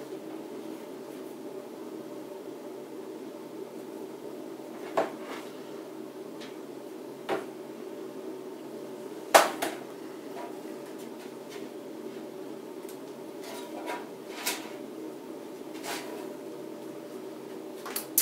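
Scattered knocks and clicks of a cheap sheet-metal computer case being handled, about seven of them, the loudest a sharp clack about nine seconds in, over a steady hum.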